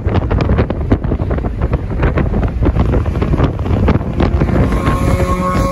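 Heavy wind buffeting the microphone in an open-top convertible at highway speed, over the car's road and engine noise. Near the end a steady humming tone comes through.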